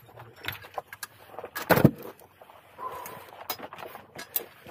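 Scattered knocks and scrapes of rocks and shells being shifted and handled among shore boulders while searching for ormers, with one louder thump a little under two seconds in.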